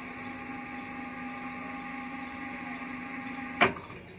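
Spartan bar bending machine's electric motor and gearbox running forward, turning the bending disc with a steady hum, now running properly. About three and a half seconds in, a sharp click, and the hum stops.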